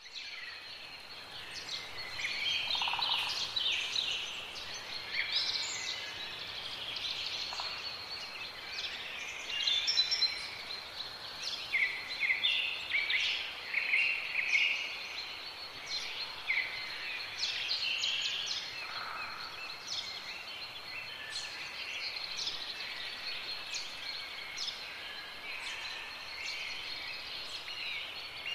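Many small birds chirping and twittering in quick, overlapping calls, over a steady thin high tone.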